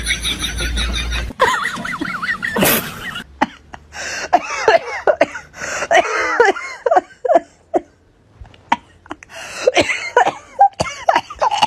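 A person making short non-word vocal sounds, like coughs and laughs, broken by brief pauses.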